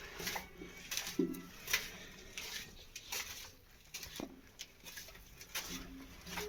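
Footsteps scuffing and clicking on a hard tunnel floor at an uneven walking pace.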